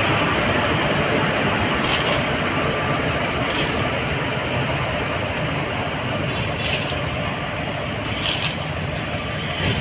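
Freight train of flat wagons rolling past with a steady rumble, short high wheel squeals about one and a half to four and a half seconds in, and a few knocks from the wheels.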